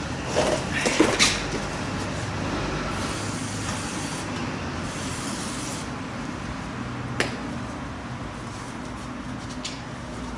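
Hands working on a motorcycle's side: a few knocks and rattles of parts being handled in the first second or so, then one sharp click about seven seconds in, over a steady low hum.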